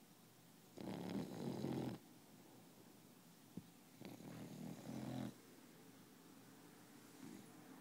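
Puppy snoring in its sleep: two snores, each just over a second long and about three seconds apart, with a fainter breath near the end.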